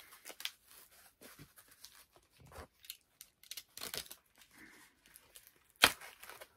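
Packing tape being pulled and torn off a cardboard shipping box to free a taped-down comic, in short irregular rips and crackles, with one sharp, loud snap near the end.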